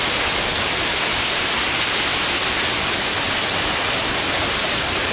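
Hurricane wind and heavy rain, a loud steady rushing noise.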